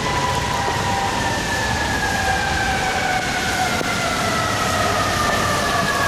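Emergency-vehicle siren on an FDNY command SUV sounding a wail that falls slowly in pitch, one long sweep down, over the steady hiss of traffic on a wet street.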